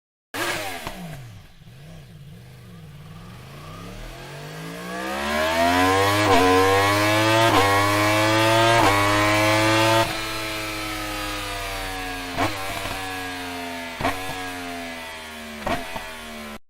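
Inline-four superbike engine accelerating hard through the gears, the note climbing with a brief dip at each upshift. About ten seconds in it eases off and the pitch falls, with three short blips as it shifts down.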